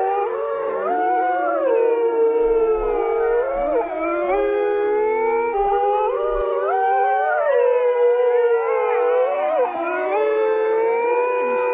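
A group of coyotes howling together: several long howls overlapping, each rising and falling in pitch.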